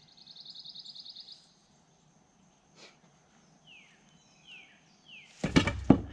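Small birds calling: a fast high trill, then three quick chirps that each slide down in pitch. Near the end come two loud thumps.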